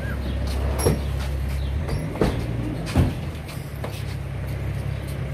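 A vehicle engine running with a steady low hum, with a few sharp knocks about one, two and three seconds in, around the open doors of a police car.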